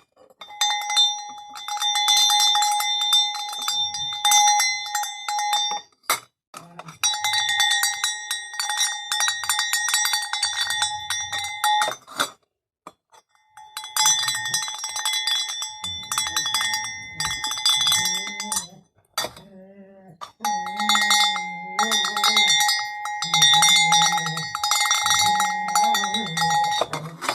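Hunting-dog bell (a botalo-style clapper bell for Brittany spaniels) clanging rapidly in four runs of a few seconds each, separated by short pauses.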